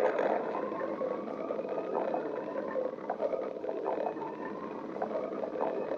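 A person's stomach growling and gurgling: a drawn-out whining tone with small bubbling pops scattered through it.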